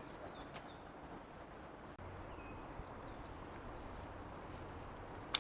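Faint outdoor ambience with distant birds chirping now and then, and a single sharp click near the end.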